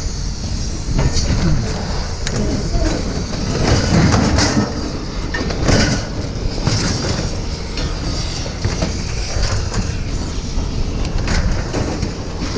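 Scrap metal clanking and scraping, with irregular knocks and short metallic squeals.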